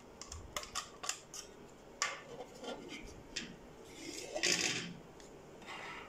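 Plastic housing of a wireless smoke detector being twisted and prised open by hand: a run of sharp plastic clicks and snaps, then a louder scraping rub about four seconds in as the cover comes free.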